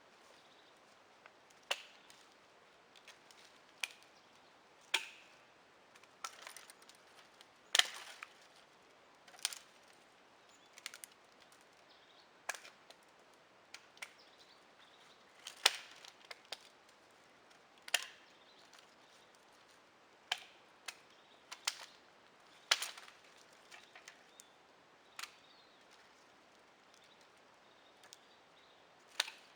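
A hand tool striking wood: a series of about fifteen sharp chopping knocks, coming irregularly about every one to two seconds.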